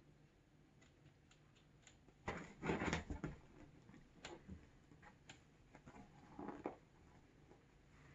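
Kittens' paws tapping and scrabbling, light scattered taps with a louder scuffle about two to three seconds in and a shorter one near the end.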